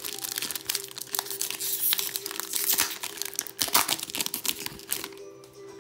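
Foil booster-pack wrapper being crinkled and opened by hand: a dense run of crackling crinkles that eases off about five seconds in.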